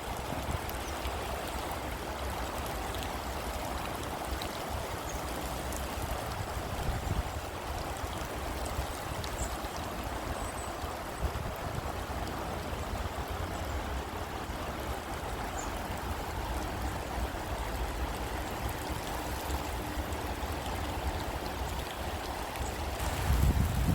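Heavy rain pouring down steadily, a constant hiss of falling water, with a low rumble under it and a brief louder swell just before the end.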